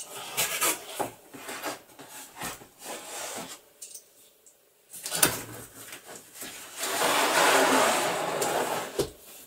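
Wooden-framed stretched canvases and a cardboard box being handled: scattered scuffs and taps, a sharp knock about five seconds in, then a steady rubbing scrape lasting about two seconds near the end.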